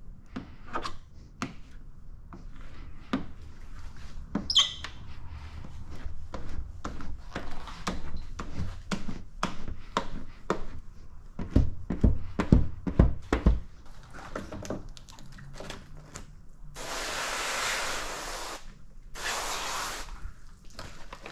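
A squeegee rubbing and squeaking over wet paint protection film on a truck fender, with small handling knocks and a quick run of loud, low thumps about halfway through. Near the end come two hisses of spraying liquid, one long and one short, typical of slip or tack solution sprayed onto the film.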